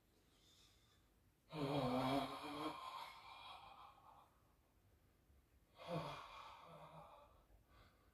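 A man letting out two long voiced sighs on the out-breath, an open 'ahh' during a bioenergetics breathing exercise. The first, about a second and a half in, is the louder and fades slowly; the second comes about six seconds in.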